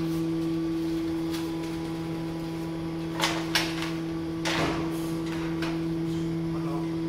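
A metal wire rack clanking a few times, about three to four and a half seconds in, as a whole roast lamb is set down on it, over a loud steady hum.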